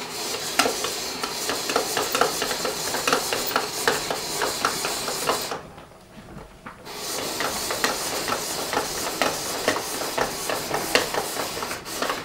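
Hand-cranked countertop spiralizer cutting a peeled raw butternut squash into spaghetti-like noodles: a dense, crunchy crackle of the blade shaving the hard flesh. It stops for about a second around halfway, then starts again.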